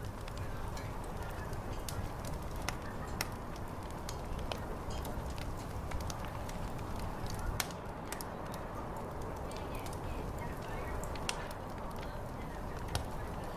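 Fire crackling, with irregular sharp pops and snaps, one of the loudest about halfway through, over a steady low background noise.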